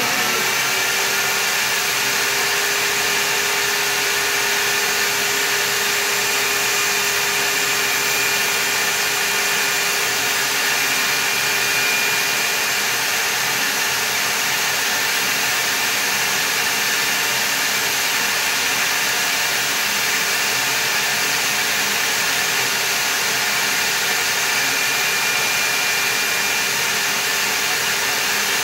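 Portable table saw running steadily, its dull rough-cutting blade tilted to an angle, ripping a bevel along a balsa wood aileron.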